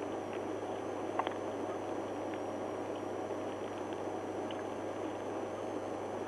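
Steady hum and hiss inside a parked police cruiser's cabin, with a faint click about a second in.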